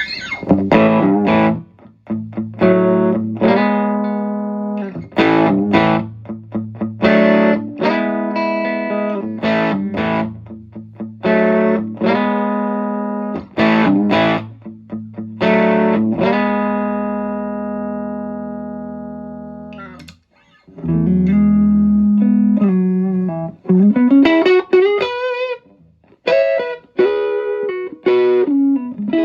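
Electric Cabronita Telecaster played through a Fender 5E3 tweed Deluxe amp with a Celestion Blue speaker: chords picked and let ring, one left to die away for about four seconds past the middle, then a slide up into wavering, vibrato single notes near the end.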